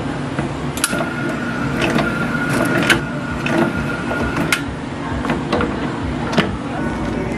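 Countertop can-sealing machine running, spinning plastic juice cans to seam their lids on. There is a steady high whine from about one second in to about four and a half seconds in, with several sharp clicks.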